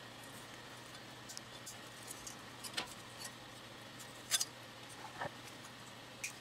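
A few sharp little clicks and scrapes of thin metal as pieces of the pacemaker's metal housing are worked off by hand and with a small tool, spread over several seconds, over a faint steady hum.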